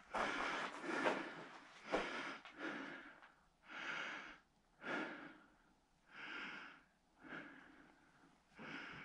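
A hiker breathing hard close to the microphone, about one breath a second, the breaths coming slower toward the end.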